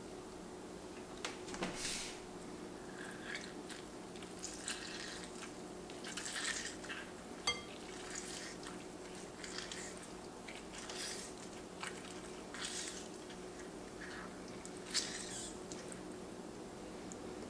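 Food-prep sounds over a glass mixing bowl: a chef's knife scraping and clicking as minced garlic is wiped off it, then a lemon squeezed by hand, with juice dripping and squishing into the bowl. The sounds come as short scattered rustles and clicks over a faint steady hum.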